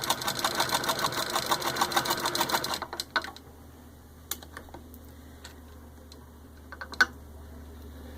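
Antique Wheeler & Wilson No. 9 hand-crank sewing machine stitching through four layers of denim, a rapid even clatter as the crank is turned. It stops about three seconds in, followed by a few separate clicks and one sharp click near the end.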